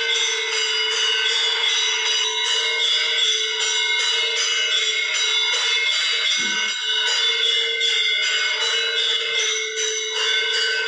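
Temple bells ringing continuously for arati, struck in a fast, even rhythm of about three strokes a second, with a brief low thud about six seconds in.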